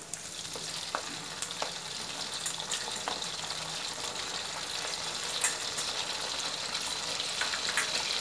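Pork belly pieces deep-frying in hot oil in a steel wok on their second fry to crisp them golden, with fish sauce being splashed in: a steady sizzle with scattered sharp pops, getting a little louder as it goes.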